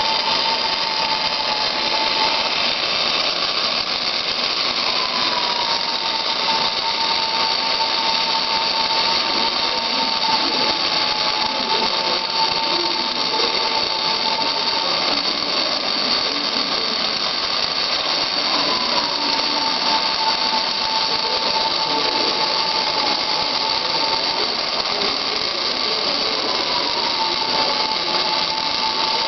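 Robotic MIG welding: a continuous arc hiss and crackle, with a steady whine that jumps up in pitch a few times and slowly sinks back.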